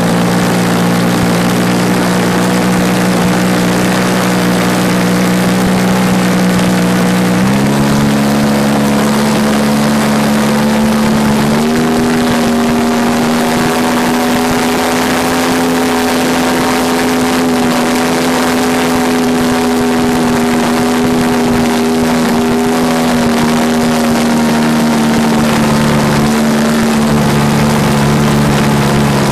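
Engine and propeller of a Hangar 9 Edge 540 radio-controlled plane running close to the microphone, over a steady rushing noise. The pitch jumps up twice, about a quarter and then about two-fifths of the way in, holds high, then sags and drops back near the end.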